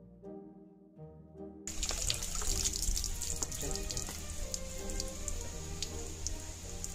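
Water running from a brass wall tap into a small stone basin and splashing, starting suddenly nearly two seconds in. Soft background music plays throughout.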